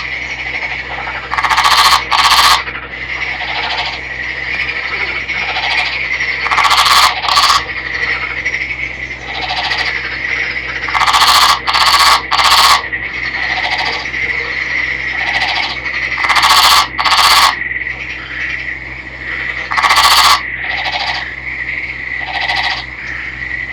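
Nagoya daruma frog calling: short, loud croaks in quick pairs or threes about every four to five seconds, with softer single croaks in between. A steady high-pitched drone runs underneath.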